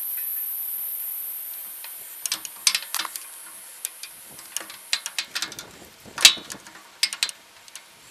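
Massey Harris 30 power take-off shaft knocking and clicking against the inside of the tractor's rear housing as it is pushed in and turned by a pipe handle, hunting for the splined coupling it has not yet engaged. The clicks come irregularly, the loudest about six seconds in.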